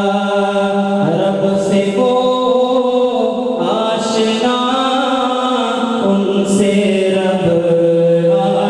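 A man singing a naat, an Urdu devotional poem in praise of the Prophet, unaccompanied into a microphone. He draws out long held notes and moves to a new pitch every couple of seconds.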